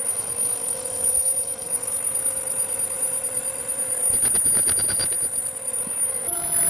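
Metal lathe running while plain-turning a steel tool joint, a steady machine noise with a high whine; the tones step up in pitch about six seconds in.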